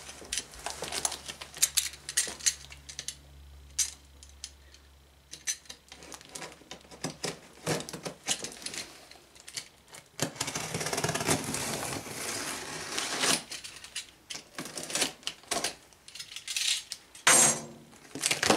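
Utility knife cutting the packing tape along the seam of a large cardboard box: a scatter of clicks and taps from the blade and hands on the cardboard, with a longer steady scraping cut about ten seconds in.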